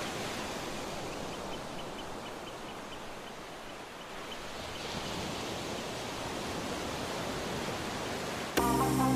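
Steady, even outdoor noise with no distinct source. Near the end, music comes in abruptly.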